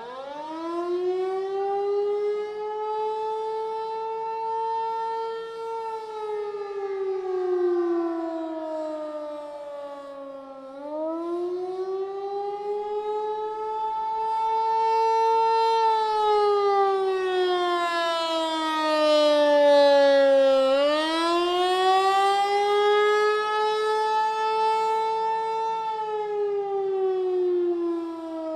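Federal Signal 508-128 rotating electromechanical siren winding up from low and sounding the attack signal. Its wail rises and falls in pitch about every ten seconds, and it swells and fades in loudness as the horn turns.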